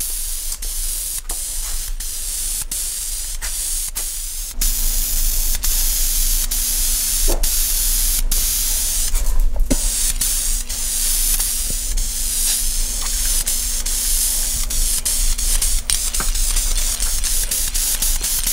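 Guide coat being sprayed over freshly primed truck body panels: a steady spraying hiss that gets louder about four and a half seconds in, over a steady low hum.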